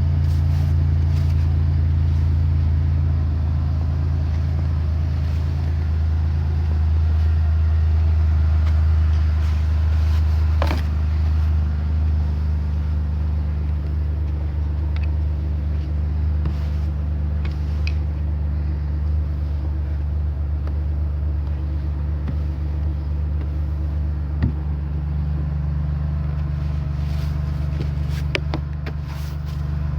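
Car engine idling steadily while it warms up in the cold, with a few short clicks now and then.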